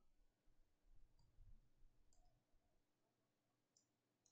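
Near silence, with a few faint computer-mouse clicks.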